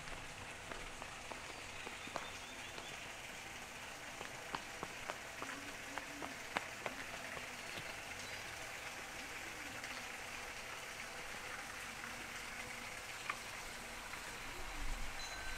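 Steady hiss of falling water, with a scattered handful of light clicks.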